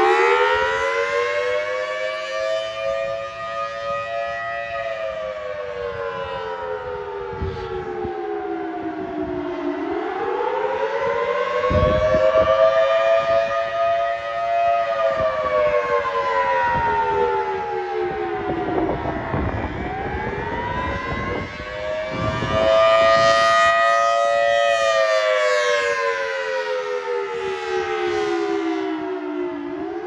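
Federal Signal Thunderbolt 1000T outdoor warning siren sounding its monthly test in a wail. Its pitch rises for about five seconds and falls for about five, three times over, while the loudness swells and fades.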